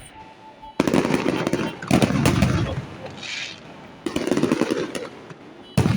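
Fireworks shells bursting overhead: four loud booms at uneven gaps, each trailing off in crackle and rumble.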